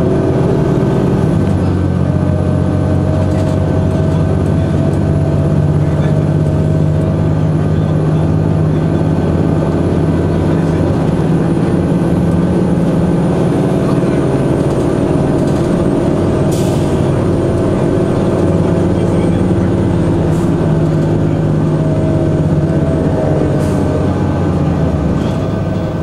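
Inside a 2002 Blue Bird CS transit bus on the move: its Cummins ISC diesel engine and Allison B400R automatic transmission running steadily, with a steady whine over the engine and a few sharp rattles.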